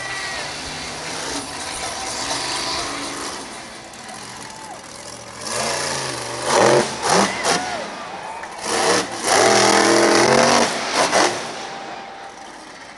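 A monster truck's engine revving hard in repeated bursts. It is loudest in two stretches, one about six to seven and a half seconds in and a longer one about nine seconds in, and quieter between.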